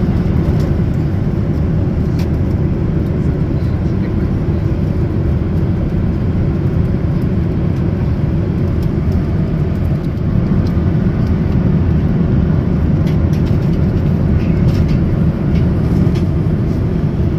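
Steady low rumble of a moving vehicle, with a few faint ticks.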